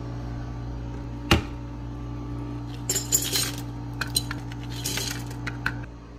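Ice cubes poured from a plastic cup into a glass mason jar mug, clinking against the glass in several quick clusters, after a single knock about a second in. A steady low hum runs underneath and stops near the end.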